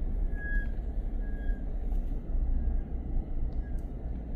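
Toyota Land Cruiser driving slowly, heard from inside the cabin: a steady low rumble of engine and tyres.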